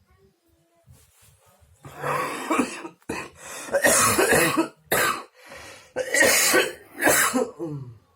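A sick person in a coughing fit: several harsh coughs in close succession, starting about two seconds in and running to near the end. It is a dry cough from a cold.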